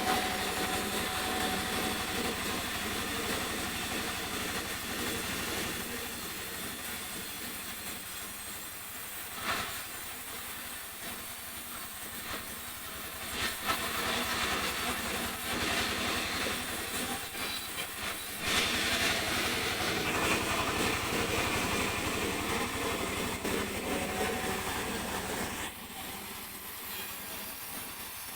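Sawmill saw running through mahogany: a steady machine hum under a hissing cutting noise. It shifts abruptly a few times and drops quieter near the end.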